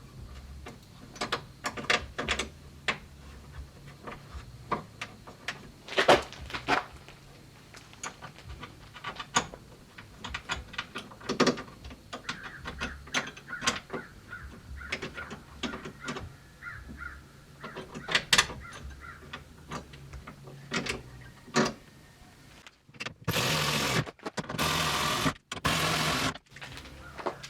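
Scattered clicks and knocks of car door trim parts being handled and fitted, then three short bursts of a dense mechanical rattle near the end.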